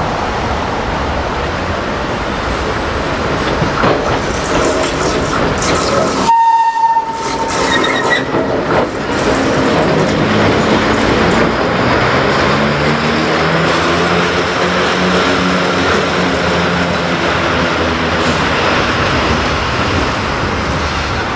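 A preserved railway vehicle running on the track. The sound breaks off abruptly about six seconds in and is followed by a brief steady tone. From about twelve seconds a low hum rises and then falls in pitch.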